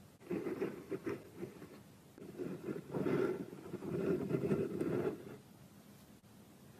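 Small metal parts of a model Stirling engine being handled: a dense, rapid crackle of fine clicks and scraping in two stretches, the second longer and louder, dying away about five seconds in.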